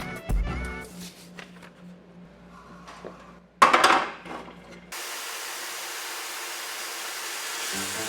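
A sudden loud clank with a short ring, then a steady even hiss of a power tool working.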